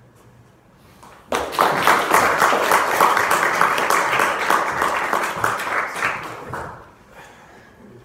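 Audience applauding at the end of a talk: the clapping starts abruptly about a second in, holds for about five seconds and dies away shortly before the end.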